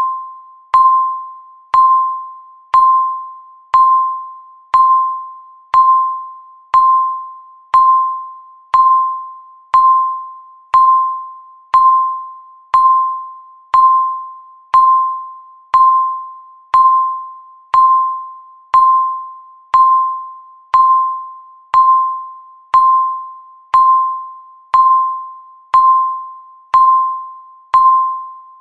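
Countdown timer beep repeating once a second, each beep marking one second left. Each is a single tone that starts sharply and fades away before the next.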